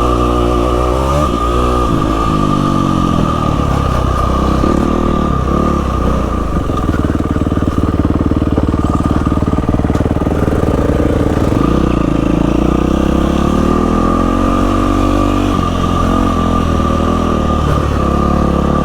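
Yamaha WR450F single-cylinder four-stroke dirt bike engine under way on a trail, its revs falling, holding and rising again with throttle and gear changes, with a steady high whine running over it.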